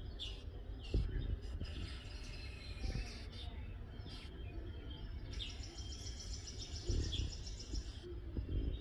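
Birds chirping, with short calls throughout and a fast, even trill in the second half. Beneath them a low rumble with a couple of dull thuds, about a second in and again near the end.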